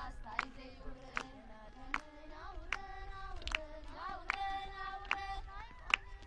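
High voices singing long, wavering held notes, with a sharp hand clap about every three-quarters of a second keeping time.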